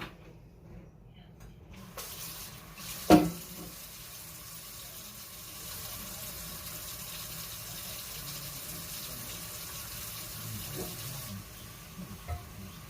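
Tap water running into a kitchen sink, turned on about two seconds in and shut off about eleven seconds in, while a cast iron skillet is rinsed. About a second after the water starts there is one loud clunk, with a few lighter knocks near the end.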